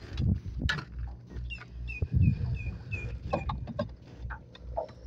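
A bird calling a quick series of about six short, clucking notes of the same pitch, over a gusty low rumble and a few knocks.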